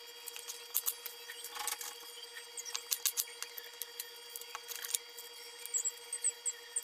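Dry onion skin crackling and rustling in short, irregular crackles as it is peeled off by hand and with a kitchen knife.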